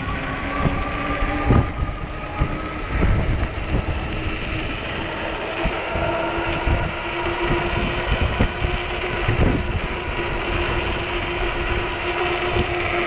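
E-bike's electric motor whining at a steady pitch under throttle, over wind rumbling on the microphone, with a few short knocks.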